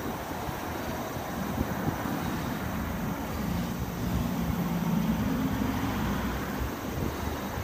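Steady low outdoor rumble of background noise, with a humming tone that swells from about three seconds in and fades by about six and a half.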